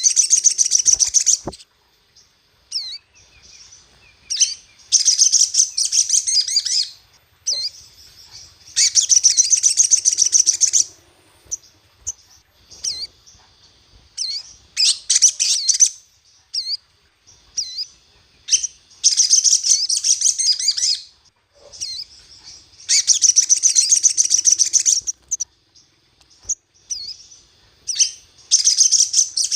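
Sogon (sogok ontong) bird singing in repeated bursts of rapid, high, warbling song, each about two seconds long and coming roughly every four seconds, with a few short calls in between. This is a provocation song track meant to rouse a caged sogon into singing.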